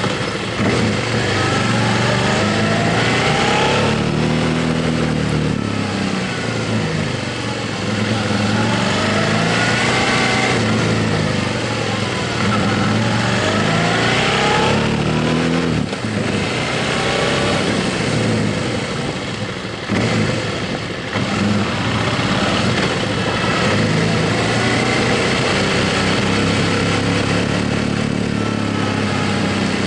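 Motorcycle engine pulling through the gears while riding, its pitch climbing three or four times and dropping back at each shift, with heavy wind rush over it. Toward the end it settles to a steady cruise.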